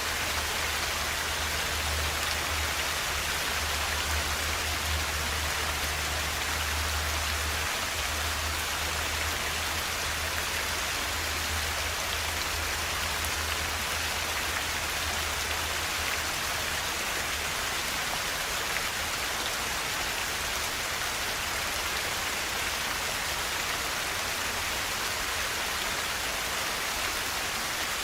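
Forest river flowing, a steady even rush of water, with a low rumble underneath that fades out about halfway through.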